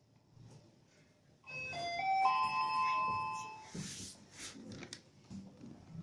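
Shanghai Mitsubishi elevator's arrival chime: a short run of electronic tones stepping up in pitch, starting about a second and a half in and lasting about two seconds. A brief rush of noise with a few clicks follows as the car doors slide open.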